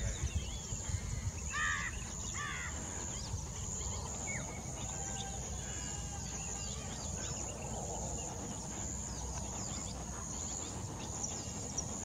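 Outdoor ambience with a steady, high-pitched insect buzz and a low rumble. Two quick runs of bird calls come about two seconds in, with a few fainter chirps after.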